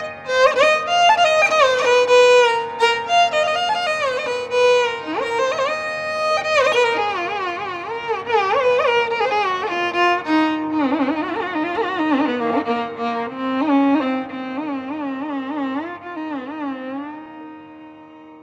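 Instrumental intro music in a Carnatic style: a single melody line with ornamented, sliding notes. About halfway through it drops into a lower register, and near the end it fades out.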